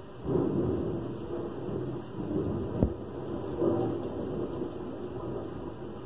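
Thunder rumbling: a low roll that begins suddenly just after the start and swells and fades in waves. A brief sharp knock comes a little before the middle.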